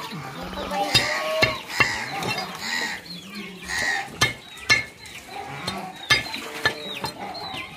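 A large knife knocking sharply on a wooden log chopping block as fish is cut and scraped on it, about seven knocks spread through the stretch, with repeated animal calls between them.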